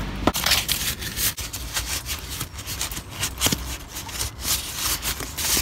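A crumpled sheet of paper rustling and crackling as it is handled and opened out, in many short irregular crinkles.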